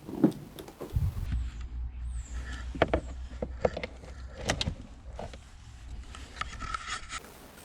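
Scattered clicks and knocks of an OBD2 code reader being handled and plugged into a car's diagnostic port, over a low hum.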